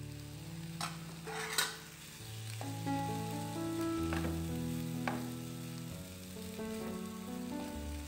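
Wooden spoon stirring rice in a frying pan, with a light sizzle and a few sharp knocks and scrapes of the spoon against the pan. Soft background music of slow, held notes plays underneath.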